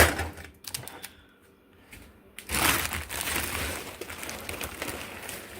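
Plastic-wrapped steak packages being handled and stacked: a knock as one is set down at the start, a few light clicks, then about three seconds of plastic rustling and crinkling.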